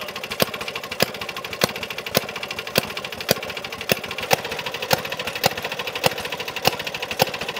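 Maytag washing-machine gasoline engine, a small air-cooled two-stroke, running at a steady idle. Its exhaust makes a fast, even popping beat with a sharper crack about twice a second.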